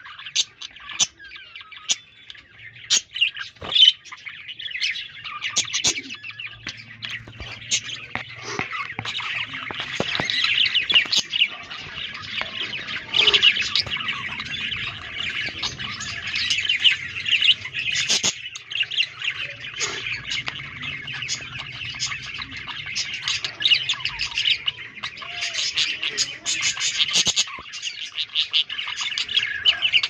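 Budgerigars chirping and chattering: scattered short calls at first, then a fast, near-continuous high warble from about eight seconds in.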